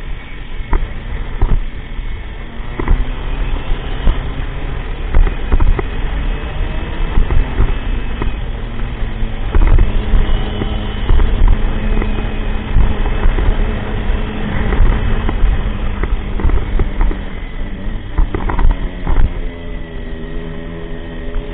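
Motorcycle riding along, its engine note under heavy wind buffeting on the microphone, with the engine pitch rising near the end.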